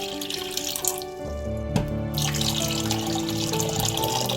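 Warm water running into a bowl, stopping about a second in and starting again about two seconds in, over background music.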